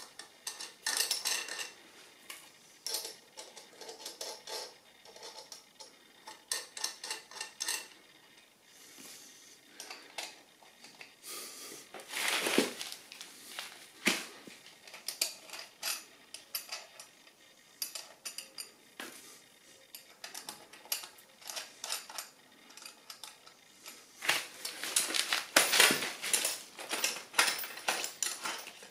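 Steel bolts, washers and nuts clinking as they are handled and fitted by hand in a wooden jack stand: irregular clusters of light metallic clinks and a few sharper knocks, busiest about a second in, around the middle and near the end.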